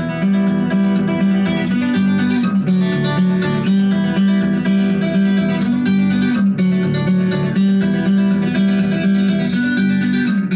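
Fast fingerstyle acoustic guitar music: rapid plucked notes over a repeating bass figure.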